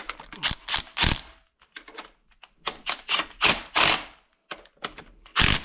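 Irregular sharp metal clicks and clatters from hand tools on the ring gear bolts as a ring gear is drawn onto a differential carrier.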